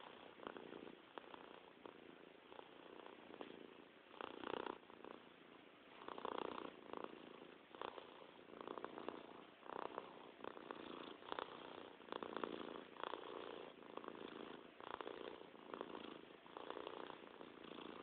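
Cat purring, swelling and fading with each breath every second or two.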